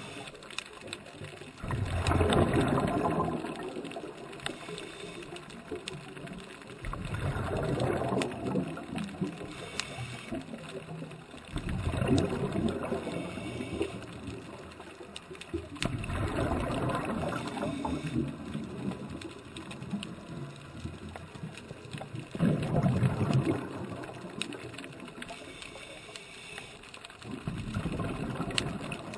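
A scuba diver's exhaled bubbles rushing and gurgling out of the regulator in six bursts about five seconds apart, with quieter breaths in between, picked up underwater.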